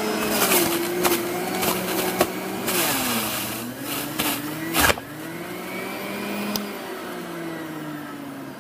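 Electric centrifugal juicer running hard as vegetables are pushed down its chute: a steady motor whine that sags in pitch under load and recovers, with rattling and sharp cracks as pieces hit the spinning cutter, the loudest crack about five seconds in.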